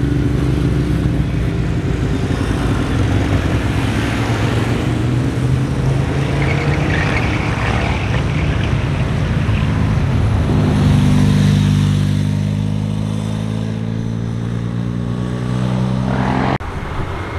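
Motorcycles passing one after another through a tight bend, their engine pitch rising and falling with the throttle, with a car going by among them. About two-thirds of the way through, one engine settles into a steady low drone, and the sound changes abruptly near the end.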